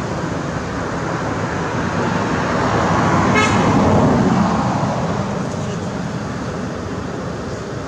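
Road vehicle passing by, its noise swelling to a peak and then fading over a few seconds, with a short horn toot about three and a half seconds in.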